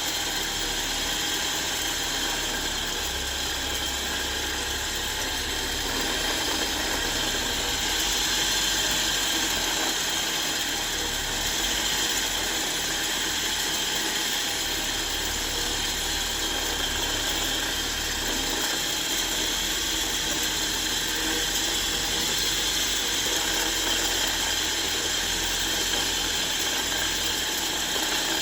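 Motor-driven fibre polishing wheel running steadily while it polishes an old steel spanner, a continuous even machine noise with no breaks.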